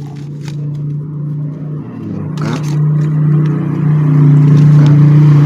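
An engine running with a steady low hum, growing louder over the first four seconds and then holding steady.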